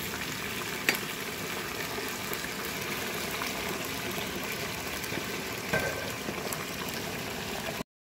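Raw potato chips deep-frying in a small saucepan of hot oil, just added: a steady sizzle and bubbling with a few sharp pops. It cuts off suddenly near the end.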